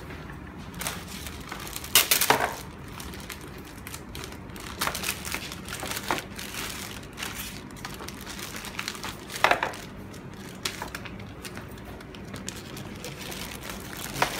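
Clear plastic packaging bags crinkling and rustling as they are handled, in irregular bursts, the loudest about two seconds in.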